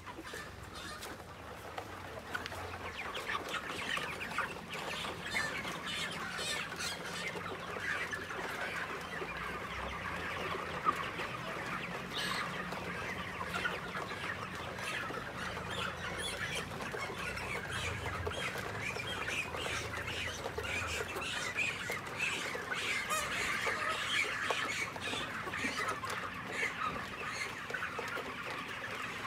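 A large flock of month-old broiler chickens, about a thousand birds, calling together: many short overlapping calls merge into a continuous din.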